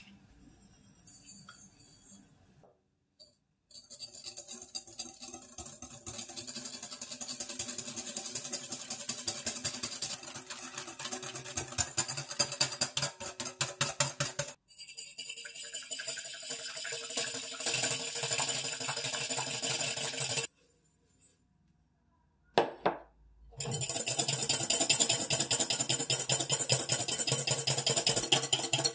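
A whisk beating fast against a glass bowl, a quick rhythmic clinking and scraping: first an egg yolk being beaten until pale, then, after a short pause, egg whites being whipped into a meringue.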